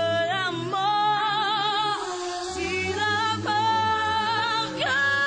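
A French-language song: a singing voice holding long notes with vibrato over a low, steady accompaniment, between lines of the lyric.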